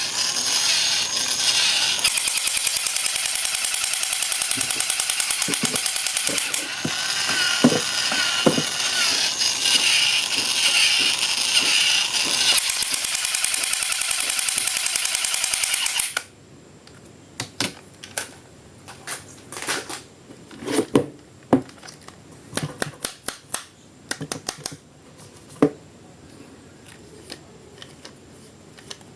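A loud, steady mechanical buzz with a fast, even rattle runs for about sixteen seconds and cuts off suddenly. After it come scattered clicks and light knocks, typical of plastic toy parts and packaging being handled.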